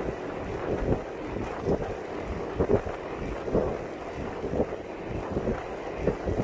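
Wind buffeting the microphone of a camera mounted on a moving recumbent cycle, coming in irregular gusts.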